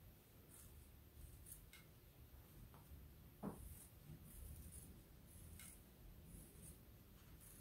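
Faint snipping of small Fiskars scissors trimming the tips of fabric appliqué leaves, several short quiet cuts, with one soft knock about halfway through.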